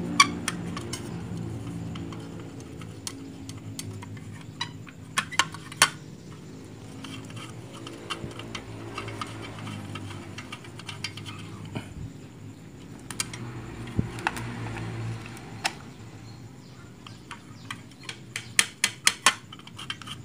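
Small electric sewing-machine motor running down from speed, then humming faintly and unevenly under a foot-pedal controller that responds poorly, a sign of a faulty pedal. Sharp clicks and rattles of the plastic foot pedal being pressed and handled, with a cluster of clicks near the end.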